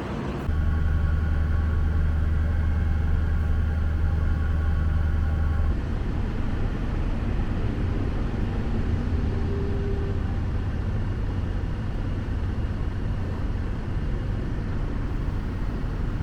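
Heavy farm machinery engine running under load. For the first few seconds there is a strong low drone with a steady higher whine, then it settles into a steadier, lower rumble.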